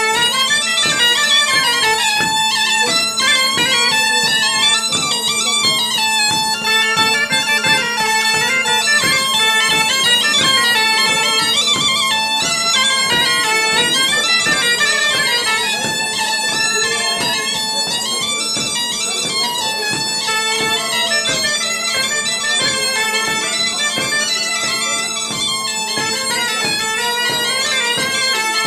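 Bagpipes playing a dance tune over a steady drone, the melody moving quickly above the held drone note.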